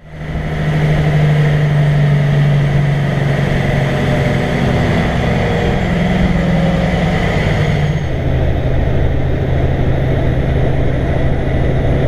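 Heavy truck's diesel engine droning steadily while driving, its pitch dropping a little about eight seconds in.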